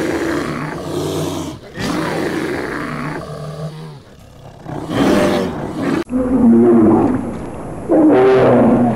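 Bear growling and roaring in long, rough growls. About six seconds in it cuts to a second recording of louder growls, each about a second long, repeating.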